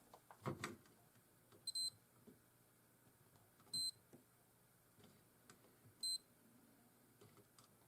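Digital multimeter giving three short, high beeps about two seconds apart, with faint clicks of the probes, as the leads of small transistors on a jukebox power supply board are tested.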